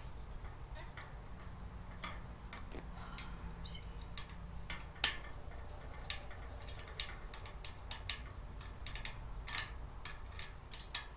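Parts of a storage cart being handled and fitted together by hand: irregular sharp clicks and clinks, one louder knock about five seconds in.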